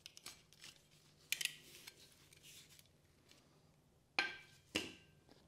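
Steel transmission parts clinking and knocking as a CVT planetary gear set is handled, with a few light clicks, a sharper clatter a little over a second in, and two loud metal clanks about half a second apart near the end.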